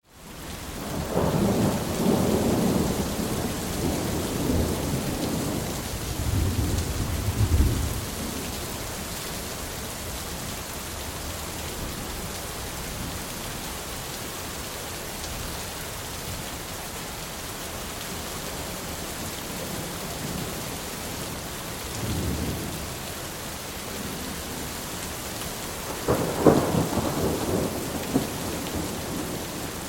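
Steady rain falling, with thunder rolling in the first several seconds, a softer rumble a little past the two-thirds mark and a sharper clap near the end.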